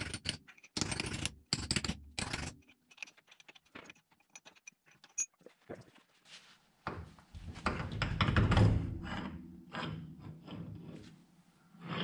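Metal parts knocked and handled on a truck's front axle: a few clanks with a brief metallic ring near the start, light clicks, then scraping and rubbing that is loudest a little past the middle.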